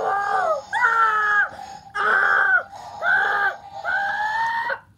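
A high-pitched voice giving about five short, held cries one after another, each lasting under a second.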